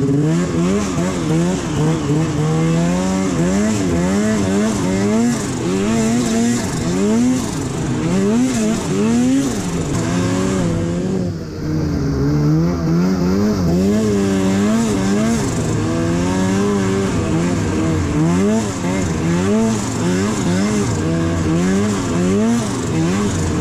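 Turbocharged Arctic Cat Alpha snowmobile's two-stroke engine under way on a rough trail, its revs rising and falling constantly with the throttle. It eases off briefly about eleven seconds in, then picks up again.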